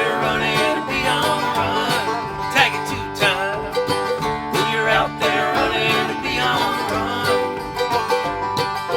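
Acoustic string band playing a lively bluegrass-style tune, with plucked strings and notes sliding in pitch.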